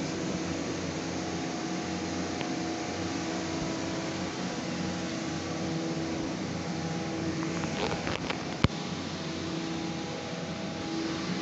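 Steady electric motor hum with several held tones, as from workshop machinery. A single sharp click comes about eight and a half seconds in.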